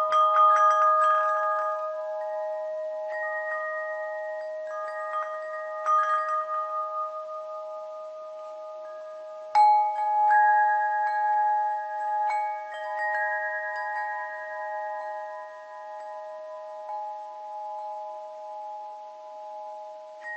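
Bell chimes struck gently at irregular moments, every second or two, each note ringing on so that several tones overlap. The loudest strike comes about ten seconds in.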